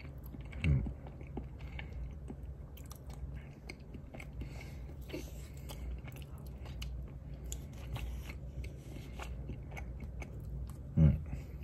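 Close-up chewing of a mouthful of firm baked cheesecake, with many small wet mouth clicks. A short hummed voice sound comes about a second in and again near the end.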